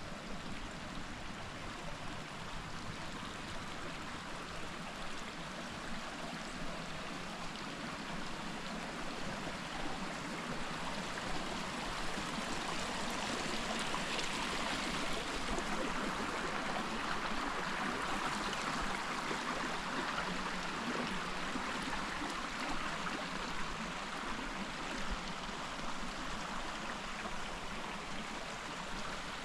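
A creek flowing over rocks: a steady rushing and gurgling of water that grows somewhat louder through the middle stretch, then eases a little.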